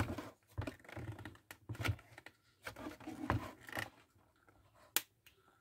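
Hands handling a plastic welding helmet: scattered clicks, taps and rustles, busier in the first four seconds, with one sharp click about five seconds in.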